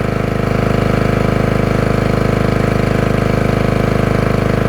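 Generator engine running at a steady speed after being started, its firing pulses even and unchanging.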